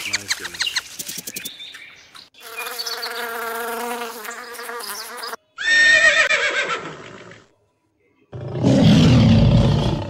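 A run of separate animal calls: clicks, then a steady buzzing call for about three seconds, then a horse whinnying, and from about eight seconds in a lion's loud, deep roar.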